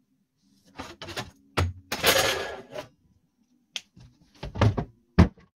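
A board being handled and moved: a few sharp knocks, a scraping slide about two seconds in, then a click and two heavier thumps near the end as it is lifted and set against things.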